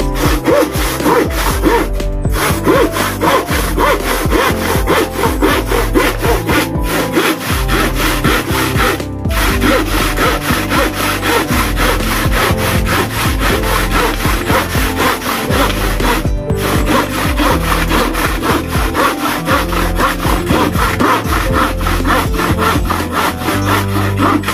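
A long, old-style handsaw cutting through a plywood board in steady back-and-forth strokes, stopping briefly a few times. Background music plays underneath.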